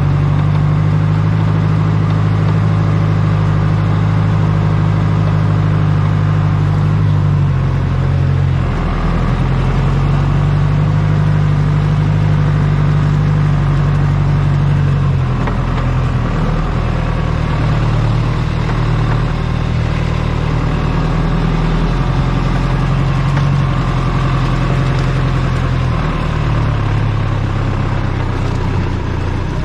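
Tractor diesel engine running steadily while driving, its note shifting a few times as the load changes.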